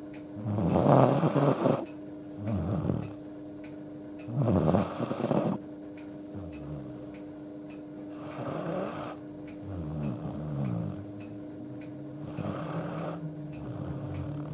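Akita dog snoring in deep sleep, a rasping snore with each breath. The first three snores are the loudest and the later ones are softer. The owner takes this for ordinary head-tilted-up snoring, not a sign of respiratory illness.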